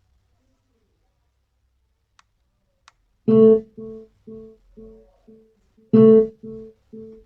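Guitar music playing from a JBL Charge 4 Bluetooth speaker: a loud plucked chord, then the same notes repeating softly about twice a second, with a second loud chord about three seconds later. Two faint clicks come just before the music starts.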